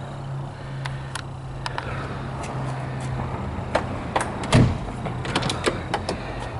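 The carbureted straight-six of a 1973 Mercedes-Benz 280 idling steadily. Over it come several clicks and knocks from a car door being handled, the loudest a thump about four and a half seconds in.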